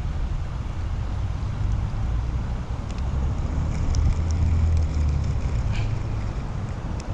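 Wind buffeting the microphone, a steady low rumble that swells a little in the middle, with a few faint clicks.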